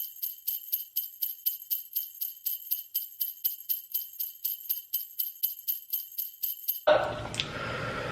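Jingle bells shaken in a steady, even rhythm of about four shakes a second, high and bright with no low sound under them. They stop abruptly about seven seconds in.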